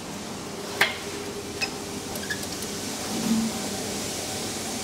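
Clicks at an SMW machine-room-less traction elevator's landing and car: one sharp click about a second in, a few lighter clicks after it, and a short low hum about three seconds in, over a steady background hum.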